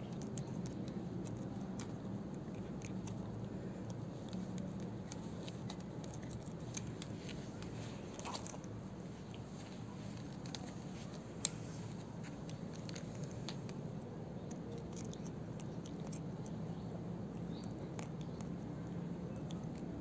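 A cat's teeth gnawing and biting on a plastic clothes peg: faint, irregular clicks and crunches, with one sharper click about halfway through, over a steady low hum.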